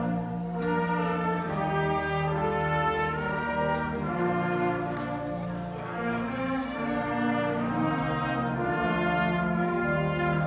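A middle-school concert band playing a slow piece, the full ensemble holding sustained chords that change every second or two.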